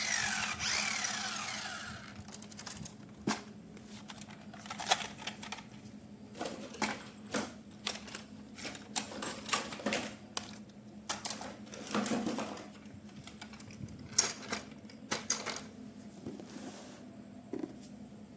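Electronic toy siren wailing up and down, stopping about two seconds in. Then irregular sharp clicks and knocks of plastic toys and packaging being handled.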